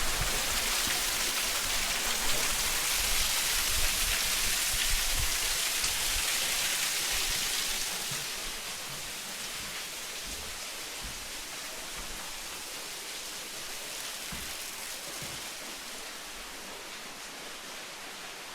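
Waterfall splashing onto rock, a steady hiss like heavy rain, louder for the first eight seconds and then softer.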